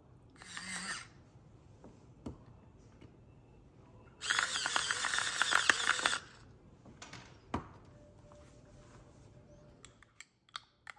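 Stainless pepper mill grinding black pepper over a small bowl of sour cream: a short grind about half a second in, then a longer one of about two seconds around the middle. A few light clicks near the end.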